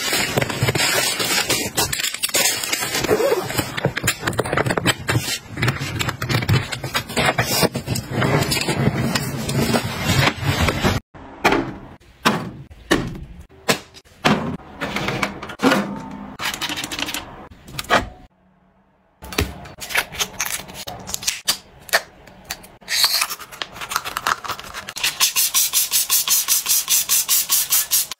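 Plastic packaging crinkling and rustling steadily as flat packets of eye masks and patches are handled for about the first eleven seconds, then it stops abruptly. After that come scattered clicks and knocks of items being handled, a second's silence, and near the end a fast, even run of clicks at about six a second.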